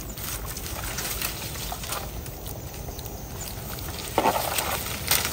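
Rubber boots stepping through wet mud, with soft crackling and patter; a louder scuffle about four seconds in.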